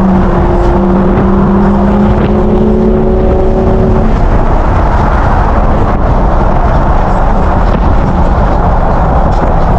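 Infiniti's twin-turbo 3.0 V6 (VR30) cruising at highway speed, heard from inside the cabin under loud, steady road and wind noise. A steady engine drone rises slightly in pitch over the first few seconds, then fades about halfway through.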